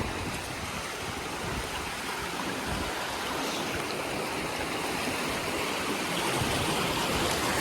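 Steady rush of water from a small waterfall, running high after a night of heavy rain. It grows slightly louder toward the end.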